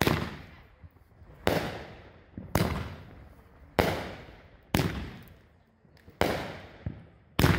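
Aerial fireworks bursting overhead: about seven sharp reports, a little over a second apart, each fading away over about a second.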